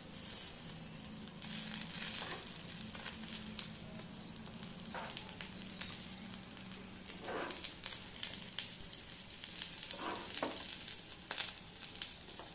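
A folded roti pizza sizzling in a non-stick frying pan, with a slotted metal spatula scraping against the pan several times. A steady low hum runs underneath.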